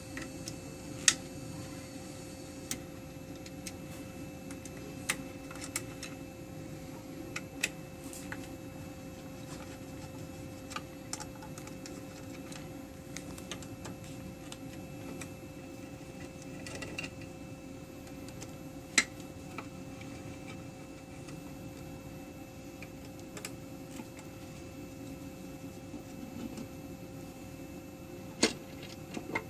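Scattered sharp clicks and taps of tools and screws as the top cover is taken off a JACK JK-T1900 electronic tacker, over a steady low hum. The loudest clicks come about a second in, about two-thirds of the way through, and near the end.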